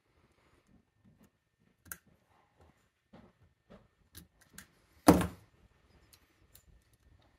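Light metal clicks of snap-ring pliers working the retaining clip on the back of a brass lock cylinder, with one much louder sharp knock about five seconds in.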